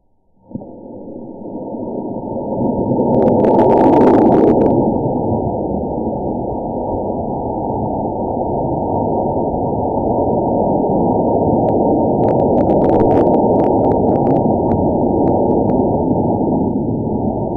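Model rocket launch played back in slow motion, its motor's rush slowed into a deep, muffled noise. It starts suddenly, swells over the first few seconds and then holds steady.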